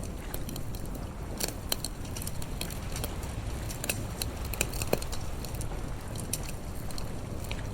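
Campfire crackling, with irregular sharp pops and snaps several times a second over a low steady rumble.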